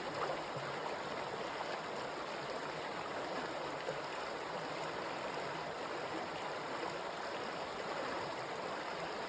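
Water of a stream flowing steadily, an even rushing and babbling.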